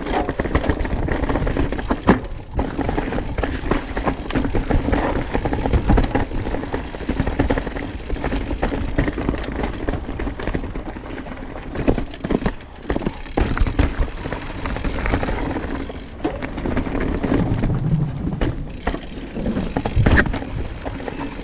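Mountain bike riding over a rocky technical trail: tyres rolling and scraping over rock, with frequent knocks and rattles from the bike.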